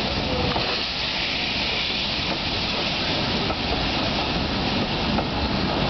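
Steam locomotive hissing steam around its cylinders as it draws passenger coaches slowly past, with the low rumble of the wheels on the rails and faint scattered clicks. The hiss and rumble run steadily without a break.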